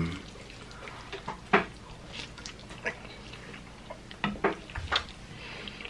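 Close-up eating sounds of a mouthful of sauced ramen noodles: scattered wet smacks and short slurps, with a quick cluster of them about four seconds in.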